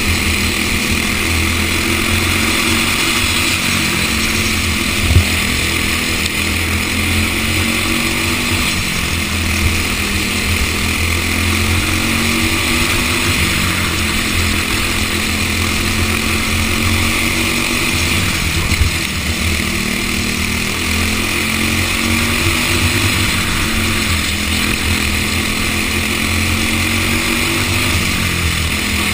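Racing kart engine heard onboard at full race pace, its note rising and falling through the corners over a steady rush of wind and engine noise. A sharp knock about five seconds in and another near nineteen seconds.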